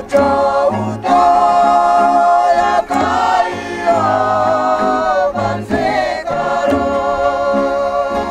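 Asmat group from the village of Uwus singing together, holding long wavering notes with short breaks between phrases.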